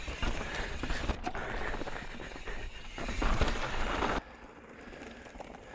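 Mountain bike riding fast down a dirt singletrack: tyre roll, rattling and clatter from the bike, and rushing wind on the microphone. About four seconds in, the noise drops suddenly to a much quieter rolling sound.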